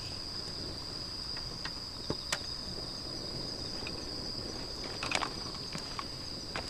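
Crickets trilling in a steady, unbroken high chorus, with a few scattered short clicks.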